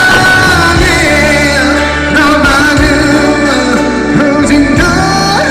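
Live pop love song: a male voice singing a long, bending melody line over band accompaniment with a steady bass.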